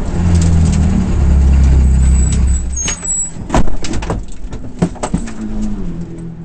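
Ferrari F430 GT race car's V8 engine heard from inside the cockpit while rolling down the pit lane, with a deep rumble that drops away suddenly about three seconds in as the car comes to a stop. A few sharp knocks and clicks follow while it stands at its pit box, and a steady engine note returns near the end.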